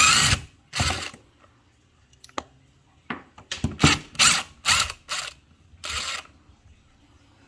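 Cordless impact driver with a square-drive bit run in a series of short bursts, backing out the screws that hold the old ceiling light's box.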